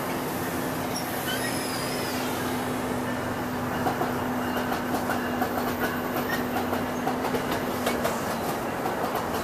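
NJ Transit Multilevel bi-level passenger coaches rolling past close by, with a steady hum and a brief high wavering squeal about a second in. From about four seconds in, the wheels click over the rail joints several times a second.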